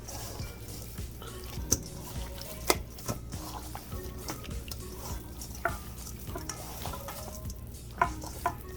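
A utensil stirring seasoned chicken, with irregular sharp knocks against the dish every second or two.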